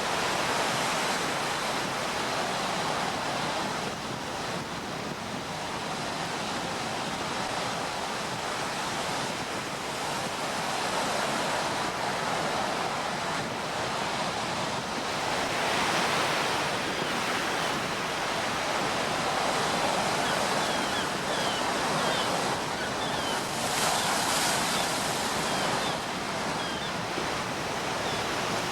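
Sea waves washing in on the shore as a steady rush of surf, swelling louder twice, about halfway through and again near the end.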